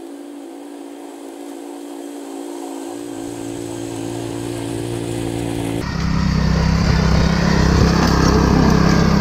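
Honda four-stroke engine on a Ryan Lawnaire core aerator running steadily, growing louder as it approaches. About six seconds in, the sound jumps abruptly to a much louder, rougher engine sound heard up close.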